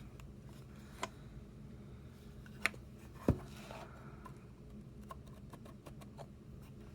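A wooden puzzle box being handled, its pieces sliding and knocking, with a few sharp clicks spread through, the loudest a little under halfway.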